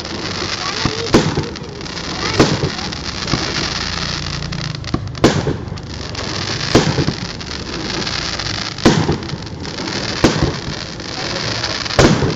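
Aerial firework shells bursting overhead: about seven sharp bangs, spaced one to two seconds apart, over a steady background hiss.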